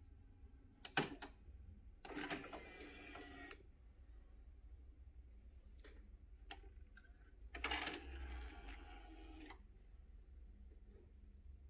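Marantz DC1020 CD deck's controls and drawer mechanism: a soft button click and a short mechanical whirr, then another click and the motorized CD drawer whirring open for about two seconds.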